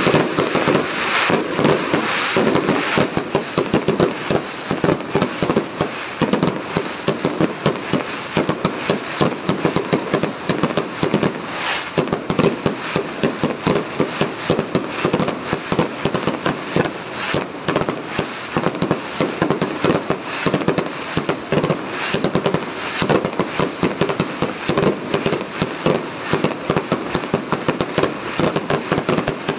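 Aerial fireworks display in a dense barrage: shell bursts and crackles following one another rapidly and without a break.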